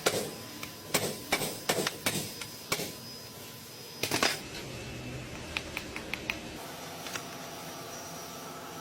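Irregular sharp metallic clicks and knocks, about a dozen in the first four seconds and then a few lighter ones, from hand-tool work on a car's propeller-shaft universal joint.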